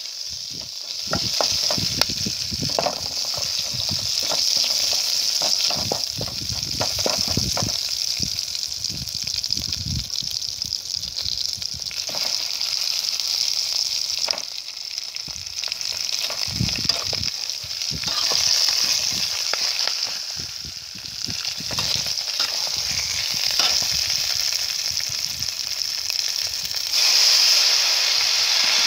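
Minced garlic, lemongrass and leaves sizzling in hot oil in an aluminium pot, with a metal ladle scraping and clinking against the pot. Raw fish pieces are laid in to fry, and the sizzle gets louder near the end.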